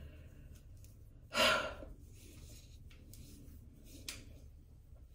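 A woman's single breathy sigh, about a second and a half in and lasting about half a second, followed by a faint click a few seconds later.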